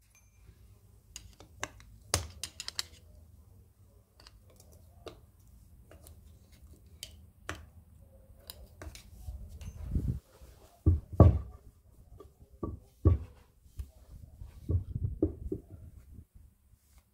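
Scattered clicks and knocks of hand tools and metal parts being worked on a bench while the old bearings are cut and split off a diff carrier, with a run of heavier thuds past the middle.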